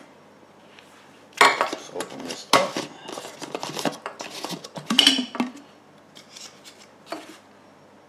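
The Ninja DualBrew Pro's glass carafe and its plastic lid being handled: a run of clinks, clatters and scrapes from about a second and a half in until past five seconds, then a single knock near seven seconds.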